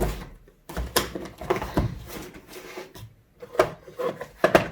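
Unboxing handling sounds: a string of clicks, knocks and rustles as the box contents and a plastic tool case are handled, with a sharp knock at the start and two more near the end.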